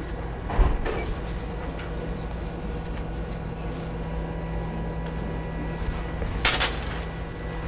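Steady low room hum with a few light clicks of a metal knife or spatula against a sheet pan, and a short metallic clatter about six and a half seconds in.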